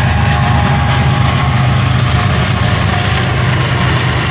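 CSX diesel-electric freight locomotives at the head of a double-stack container train, their engines giving a loud, steady low drone as they draw alongside at close range.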